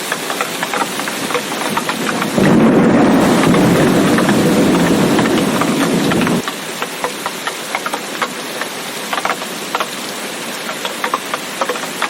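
Steady rain with many close drips ticking. A low thunder rumble comes in suddenly about two seconds in, runs about four seconds as the loudest sound, and cuts off abruptly.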